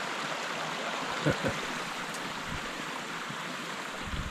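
A steady hiss of rushing noise, with two short dull knocks close together about a second and a half in and a softer bump near the end.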